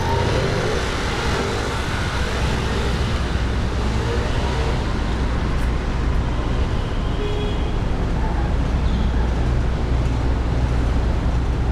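City street traffic: a steady low engine rumble from motor vehicles with the hiss of road noise over it.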